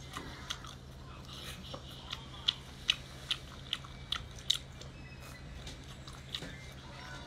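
Close-up chewing of chili-coated seafood: a run of sharp, wet mouth clicks about two or three a second, densest in the middle, over a steady low hum.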